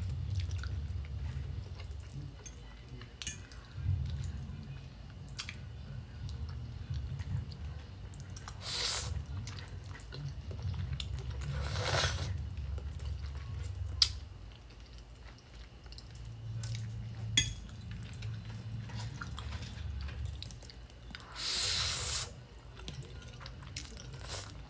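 Close-miked eating of noodles: wet chewing and mouth sounds, with noodles slurped in three times, about nine and twelve seconds in and again a few seconds before the end. A few sharp clicks fall between them.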